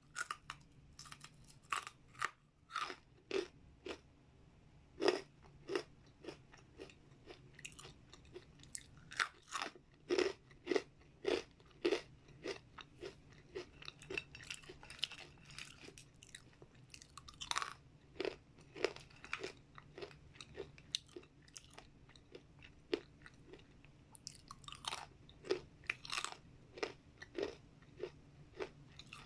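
A person chewing crunchy dried vegetable chips close to the microphone: a long run of sharp crunches, about two a second, coming in denser bursts now and then.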